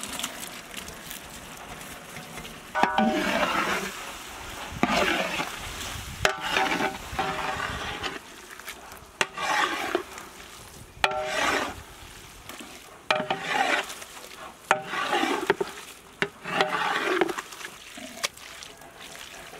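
A long metal spatula stirring prawns into thick masala in a large metal pot, in repeated scraping strokes about every one to two seconds. Each stroke starts with a short metallic clink against the pot, with a low sizzle between strokes.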